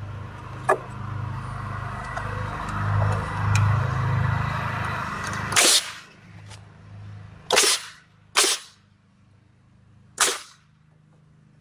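Pneumatic nail gun firing four times into the wooden spindles and rail, each shot a sharp bang with a short hiss of air. A steady low hum runs through the first half and stops at the first shot.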